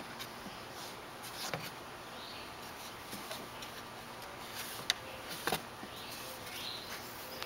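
A few sharp knocks of a toddler's shoes and hands against the wooden slats of a climbing wall, the loudest about five seconds in, over a steady background hiss with a few faint high chirps.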